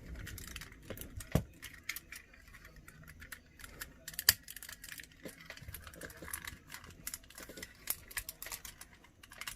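Plastic Transformers action figure being worked through its transformation by hand: a run of small plastic clicks and rattles as parts are moved, with two sharper snaps, about a second in and near the middle.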